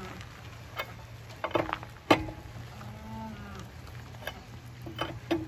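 Four-way cross lug wrench clinking and knocking on the wheel's lug nuts as they are tightened by hand, with a sharp metal clank about two seconds in.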